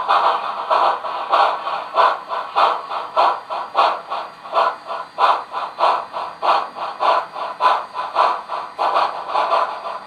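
Sound decoder of an HO scale Southern Pacific cab-forward steam locomotive model playing steady steam exhaust chuffs, about three a second, as the engine moves slowly.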